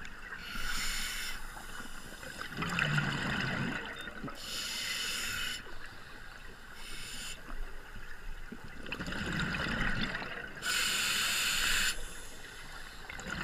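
Scuba breathing through a regulator underwater: about three slow breath cycles, each a hissing inhale through the demand valve followed by a low bubbling exhale.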